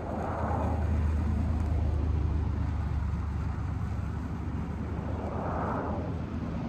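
Low, steady rumble of a motor vehicle running nearby, with a soft rushing swell at the start and another near the end.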